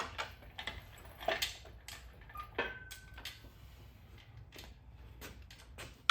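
Scattered light metallic clicks and knocks of hand tools and parts being handled during transmission installation work, with a sharper knock at the start and end and a brief short tone near the middle.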